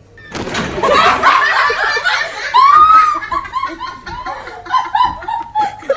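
A person laughing hard in rapid repeated bursts, with a long high squeal about two and a half seconds in.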